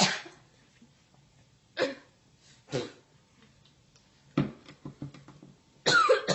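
Bouts of coughing: short, sharp single coughs about two and three seconds in, a quick cluster of smaller coughs around four and a half to five and a half seconds, and a louder, longer coughing burst near the end.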